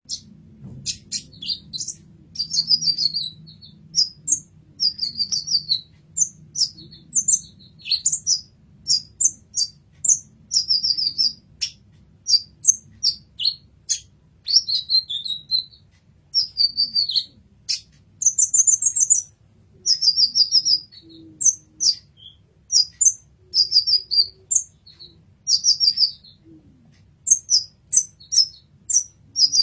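Kolibri ninja sunbird singing: quick, high-pitched chirps and short fast trills in brief phrases with short pauses between them.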